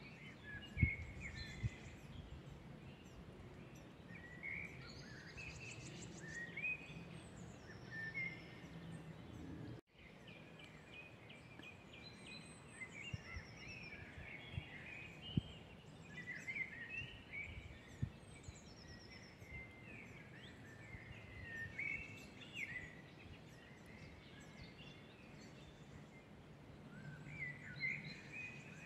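Woodland birdsong: several birds singing and calling at once in short, overlapping chirps and phrases, with a few higher trills. The sound drops out briefly about ten seconds in.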